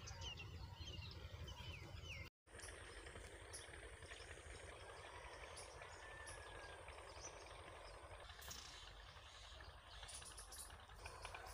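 Faint outdoor field ambience: a few birds chirping near the start, then a low rumble and a thin steady high tone after the sound cuts out for a moment about two seconds in.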